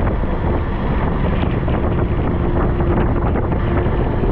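Wind buffeting the microphone on a moving KTM 390 Adventure motorcycle, with the bike's single-cylinder engine running steadily underneath.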